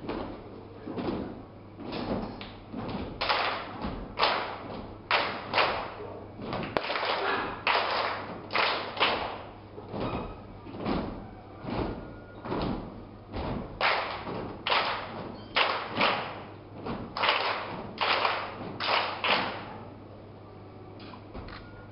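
Rhythmic percussion from a children's group on stage: loud, sharp unison hits about once a second in an uneven pattern, each with a short echo, stopping about two seconds before the end.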